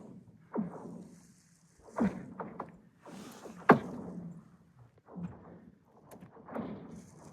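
Frozen lake ice singing and cracking: a series of quick, falling-pitch zinging chirps, several seconds apart, with the sharpest crack about halfway through. The sound comes from the ice shifting as it thickens and pushes up.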